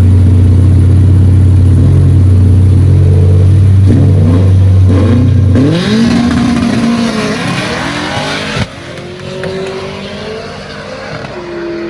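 Drag race car engine running very loud close by, then revving up with rising pitch about halfway through before the sound drops away, with a sharp crack shortly after.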